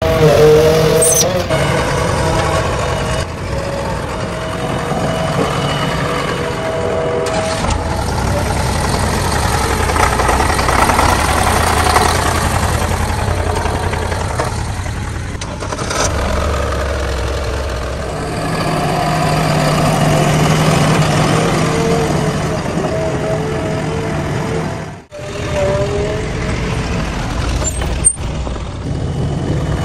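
Diesel engines of a tractor and a JCB backhoe loader running, the engine sound changing abruptly several times. There is a brief dropout late on and a single sharp click near the end.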